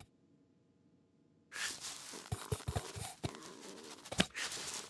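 Cartoon sound effect of a cat tugging and rummaging at a cloth sack: a continuous rustling with a few short knocks, starting about a second and a half in.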